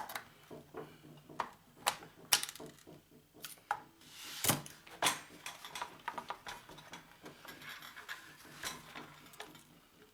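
Irregular clicks, knocks and rattles of hard plastic and metal parts handled while an oxygen concentrator is taken apart by hand. A sharper knock comes about two seconds in, and a short scraping clatter just over four seconds in.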